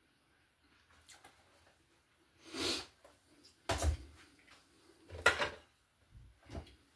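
A few short clunks and knocks, roughly a second or so apart, from things being handled at a kitchen counter.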